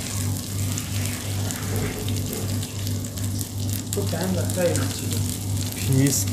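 Fish pieces shallow-frying in oil in a pan on a gas burner, with a crackling sizzle. Underneath runs a low pulsing hum.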